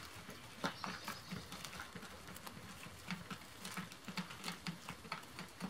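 Quails pecking at a piece of food on wood shavings: quick, irregular light taps and clicks of beaks, with soft low thuds between.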